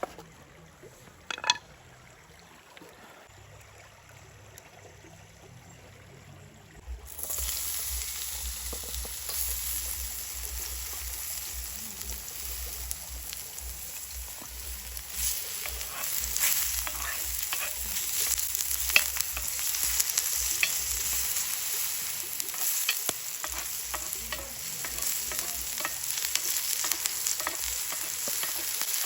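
Food frying, a steady sizzle with small crackles and pops that starts suddenly about seven seconds in; before that it is quiet apart from a couple of clicks.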